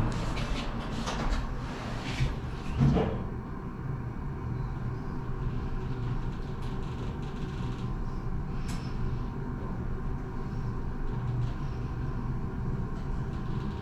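Toshiba passenger elevator: its doors close with a few clicks and a thud about three seconds in, then the car rises with a steady low hum.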